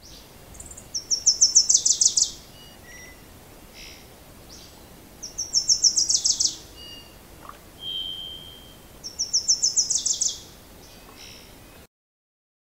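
A songbird singing the same short, fast trill of high notes three times, about four seconds apart, with faint chirps in between. The sound cuts off suddenly near the end.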